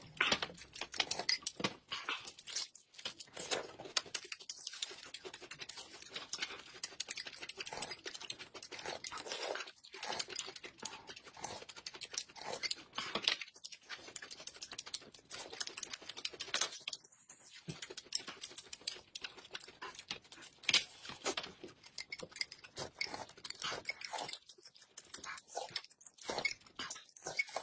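Close-up eating sounds from two people: slurping corn soup off spoons, with chewing and lip smacking, a dense run of wet mouth clicks.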